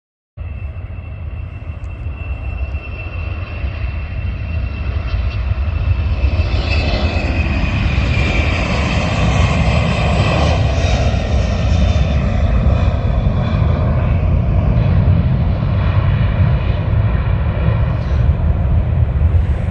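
Boeing 747-400F's four jet engines at takeoff power on departure: a deep rumble with a high whine. It grows louder over the first few seconds, and the whine falls in pitch about halfway through.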